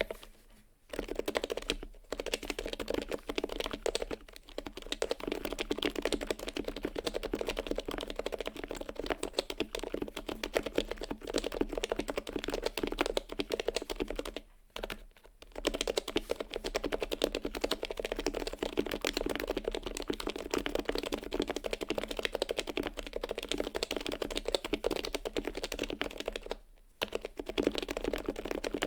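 Steady fast typing on a Topre keyboard: HHKB Pro Hybrid internals with 55 g domes, black sliders and HiPro keycaps in a heavy Grail housing, giving a dense run of muted keystroke thocks. It breaks off briefly about halfway through and again near the end.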